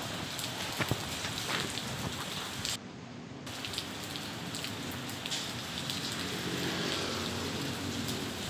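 Steady rain falling on wet pavement and standing water, with scattered drips. The hiss briefly drops out for about half a second around three seconds in.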